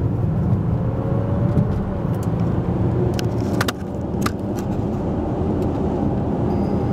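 Cabin noise of an Audi Q7 55 TFSI e plug-in hybrid (3.0 petrol V6 with an electric motor) accelerating up to motorway speed: a steady low drone of drivetrain and road, with a faint rising whine in the first two seconds. A few light clicks come around the middle.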